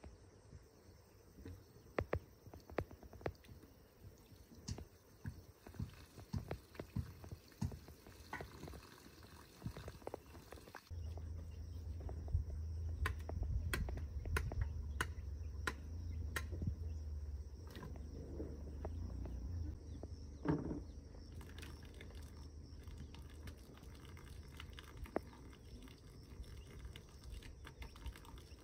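Sharp knocks and chops of a machete striking bamboo and wooden boards, irregular at first, then about two strokes a second for several seconds. A low rumble comes in suddenly about eleven seconds in and runs under the later strokes.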